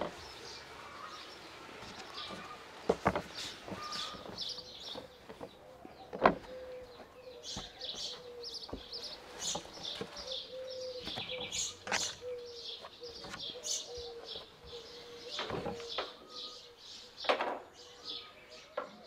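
Small birds chirping and twittering throughout over a faint steady hum, with a few sharp knocks some seconds apart as dough balls are handled and set down on a wooden board.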